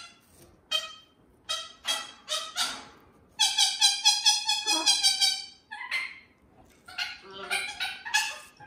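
White cockatoo calling: a string of short high calls, then a longer, rapidly pulsing call of about two seconds in the middle, then more short calls.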